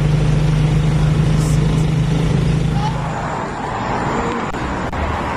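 A motor vehicle's engine running steadily, heard from inside its open passenger compartment, with a steady low hum. About three seconds in, the hum gives way to an even hissing noise.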